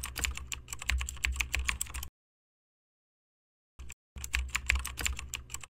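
Keyboard typing sound effect: rapid key clicks, several a second, in two runs of about two seconds and a second and a half, with a stretch of complete silence between them.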